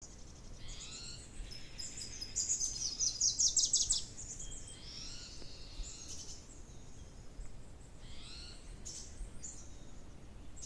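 Songbirds singing: scattered high chirps and short repeated calls, with a fast trill of high notes, the loudest sound, from about two to four seconds in.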